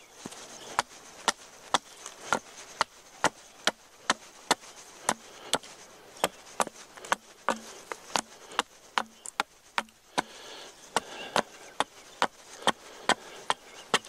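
Hatchet chopping into the end of a green sapling pole held upright on a stump, shaping a table leg: sharp wooden chops at a steady pace of about two strokes a second.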